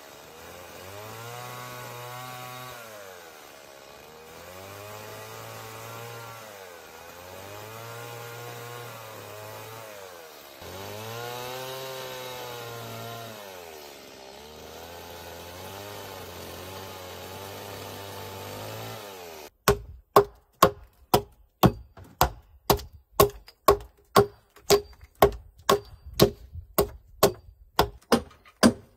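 Stihl chainsaw revving up and falling back in about six passes as its bar shaves the blackened, charred layer off a log-slab tabletop. About two-thirds of the way through it gives way abruptly to a run of sharp, even knocks, about two a second.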